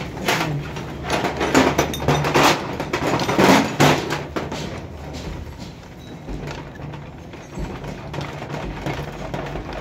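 Metal tools knocking and clinking against a small single-cylinder engine's aluminium cylinder head, a quick run of sharp knocks over the first few seconds, then quieter, with a steady low hum.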